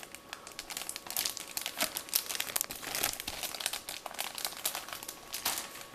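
Plastic bag crinkling as a bagged plastic model-kit parts tray (sprue) is handled, a dense run of small crackles.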